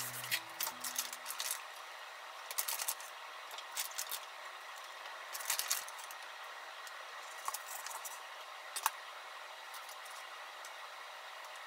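Short bursts of a plastic zip-top bag crinkling and chopsticks clicking as cooked shrimp are lifted out and set on plates, every second or two, with one sharper click about nine seconds in.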